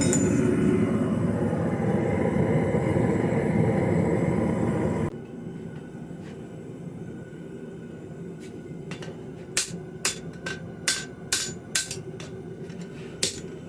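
Forge running with a steady, loud rushing noise that stops abruptly about five seconds in. Then, after a few quieter seconds, a hammer strikes steel on the anvil in irregular blows, coming close together in the last few seconds.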